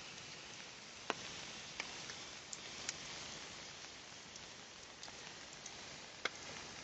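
Steady rain falling, an even hiss with a few sharp, louder drops or ticks scattered through it.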